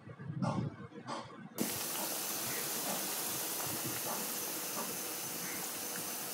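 Kachoris deep-frying in hot refined oil in a karahi: a steady sizzle that starts abruptly about a second and a half in.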